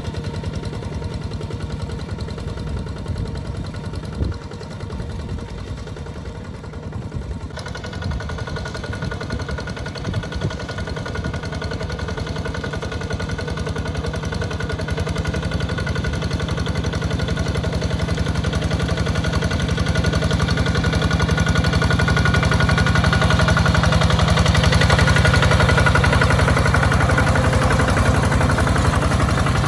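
Two-wheel walking tractor's engine running steadily under load while ploughing a wet paddy field, getting gradually louder through the second half.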